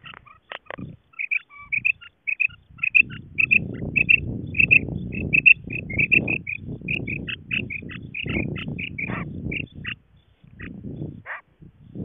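Female common quail calling: a rapid series of short, high notes, about three or four a second, with a low rumbling noise underneath.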